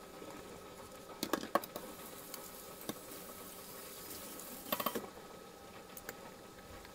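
Tap water running and splashing into a stainless steel sink while a steel pot is scrubbed, with clanks of metal dishware, the loudest a cluster about five seconds in. The water stops soon after.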